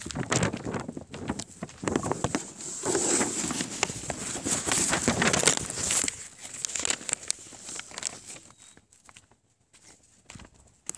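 Footsteps on dry, sandy desert ground, with rustling from the phone being handled, going quieter about eight seconds in.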